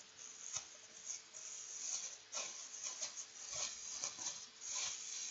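Thin clear plastic bag crinkling and rustling in the hands as it is untied and pulled open, in irregular crackly strokes.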